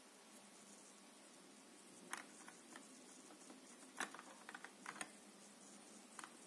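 Light clicks and taps of hands handling a phone in a clear plastic alignment tray, a scattered handful of sharp ticks with the loudest about four seconds in, over near silence.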